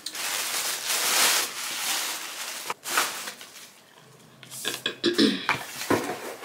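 Packaging being handled during an unboxing: a stretch of crinkling, rustling noise for nearly three seconds, then a short rustle, then scattered shorter handling rustles near the end.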